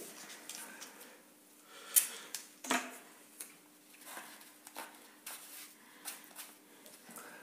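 Adhesive tape being pulled off its roll and torn into strips: a string of short crackling rips and sharp snaps, the loudest about two seconds in and again just under three seconds in.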